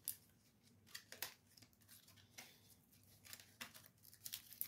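Faint, scattered ticks and rustles of trading cards being handled and shuffled through, with near silence between them.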